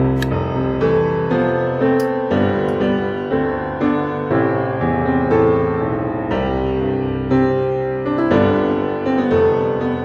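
Background piano music, with new notes and chords struck about once a second.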